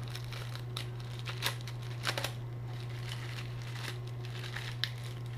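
Plastic packaging being handled: short, scattered crinkles and rustles with a few small clicks, over a steady low hum.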